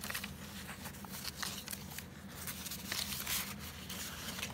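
Paper pages of a handmade junk journal rustling and crinkling as they are handled and turned by hand, in a string of short, irregular rustles.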